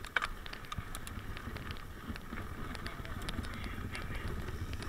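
Mountain bike rolling fast down a dirt trail: tyres rumbling over the ground and the bike rattling with scattered clicks and knocks, heard through a handlebar-mounted camera with wind rushing over its microphone.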